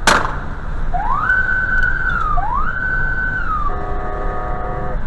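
Electronic tones: a sharp click, then two whistle-like sweeps that each rise, hold and fall, then a held chord of several steady tones that cuts off suddenly near the end.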